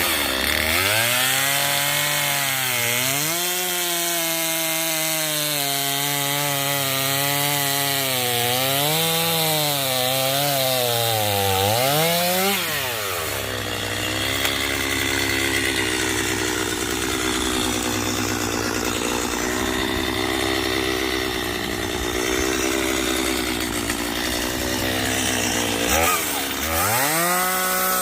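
Two-stroke gas chainsaw cutting through a felled tree trunk, its engine pitch sagging and recovering as the chain bites into the wood. About halfway through it falls to a lower, rougher note with more cutting noise, dips once more near the end, then revs back up.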